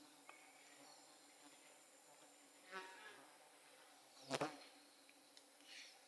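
Near silence outdoors, with an insect buzzing past for about half a second around 3 s in and a single sharp knock about a second later, the loudest sound.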